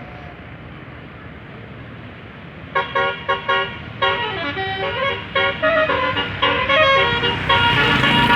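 Tour bus's Basuri telolet horn, a multi-tone horn, playing a tune: four short toots about three seconds in, then a run of changing notes getting louder, over a steady vehicle rumble.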